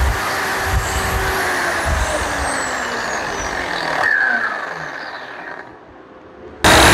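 Angle grinder with a wire brush scrubbing a steel weld bead to clean it. About four seconds in it is lifted off and switched off, winding down with a falling whine. Near the end a grinder starts up again suddenly and loudly.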